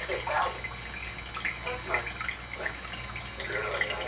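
Aquarium water trickling and dripping in irregular small plops, over a low steady hum.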